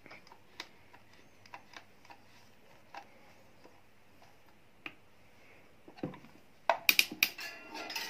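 Faint, scattered clicks of a screwdriver turning a screw into the plastic rear cover of an electric stand fan's motor housing. About six seconds in come louder clattering knocks as the fan head with its wire guard is handled.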